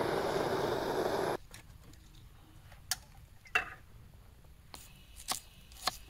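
Steady car running noise that cuts off abruptly about a second and a half in. Then it is quiet, with a few scattered sharp clicks and knocks.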